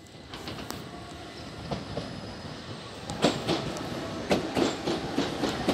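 Electric multiple unit train running into the station over a rising rumble. From about three seconds in, its wheels clatter over the points and rail joints in a run of sharp clicks.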